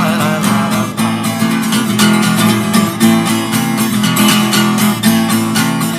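Background music: a steady, rhythmic strummed acoustic guitar playing an instrumental stretch of a song between sung lines.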